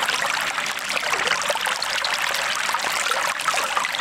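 Running water: a steady trickling, splashing stream full of small droplet sounds.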